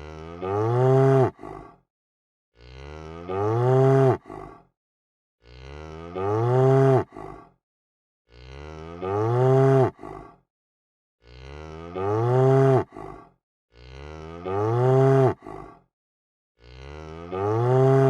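A cow mooing over and over, about seven identical calls, one roughly every three seconds with silence between. Each moo rises in pitch, holds, then breaks off, followed by a brief second note.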